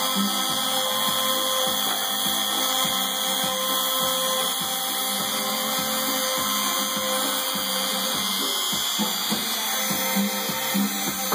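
CNC router spindle running with a steady whine as a 2 mm spiral end mill cuts 3 mm MDF, under background music.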